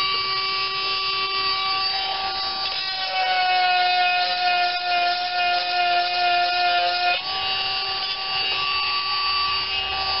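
Small motor of a 12-volt chainsaw sharpener running with a steady whine while its grinding stone files the chain's teeth. The pitch sags a little about three seconds in and comes back up around seven seconds.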